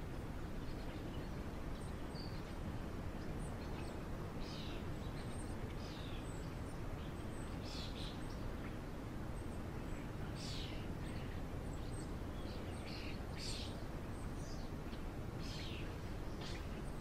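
Birds chirping now and then in short, high calls over a steady low background hiss.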